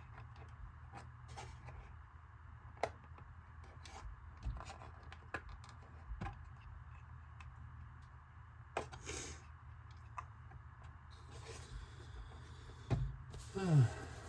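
Light clicks and rubbing as small plastic parts of a hard plastic RC truck body are handled and fitted, over a steady low hum. A short falling sound near the end is the loudest moment.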